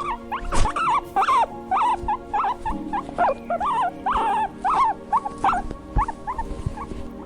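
An animal making many short, high calls that rise and fall in pitch, several a second, over steady background music.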